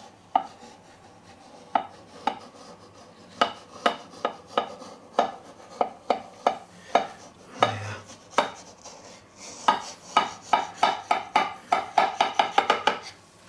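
Knife blade ticking and scraping against a springform cake ring as it is run around the inside to loosen the cake: a string of sharp clicks, scattered at first, then coming quickly, about four or five a second, in the last few seconds.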